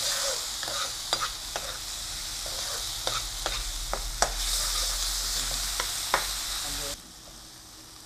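Ground spice paste sizzling in hot oil in a non-stick frying pan while a metal spatula stirs it, with frequent scrapes and taps of the spatula against the pan; the paste is being sautéed until its raw smell cooks off. The sizzle drops away suddenly near the end.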